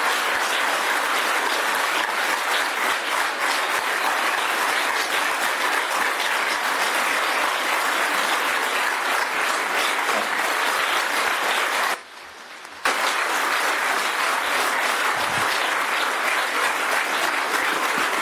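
An audience applauding steadily, a dense crowd of hand claps. It breaks off for about a second roughly two-thirds of the way through, then resumes.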